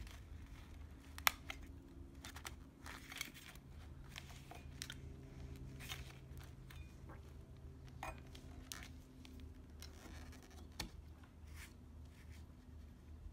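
Metal scraper blade prying and scraping old weatherstrip out of a wooden door frame: faint scratchy rustling broken by a few sharp clicks, as the strip is worked loose.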